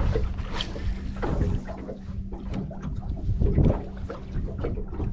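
Wind rumbling on the microphone over a steady low hum from the boat, with a few light knocks.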